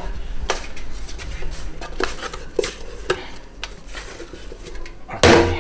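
Kitchen handling noises: a few light knocks and clinks of pans and utensils, then a louder clatter near the end.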